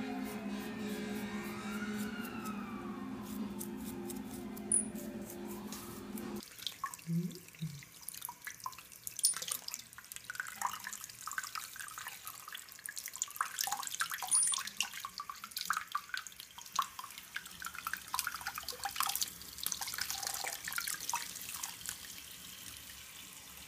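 Background music for about the first six seconds, cutting off abruptly. Then a thin stream of tap water runs from the faucet and splashes irregularly over a hand and a small wet animal in a bathroom sink.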